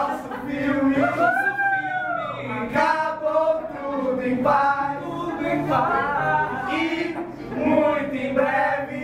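Several voices singing a song together, with little or no instrumental accompaniment.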